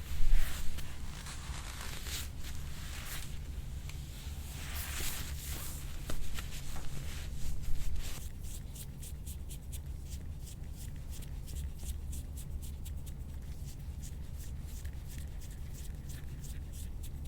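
A chiropractor's hands working on a patient's rib area: rustling and handling of skin and clothing, with a loud knock near the start and a few softer bumps around the middle, then light rapid ticking in the second half, over a steady low hum.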